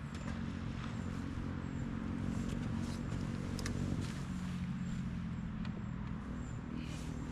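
A motor engine running steadily: a low hum that shifts slightly in pitch about four seconds in.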